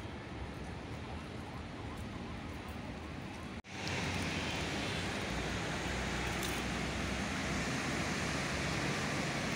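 Steady hiss of heavy rain. About a third of the way in the sound cuts out for an instant and comes back louder and brighter.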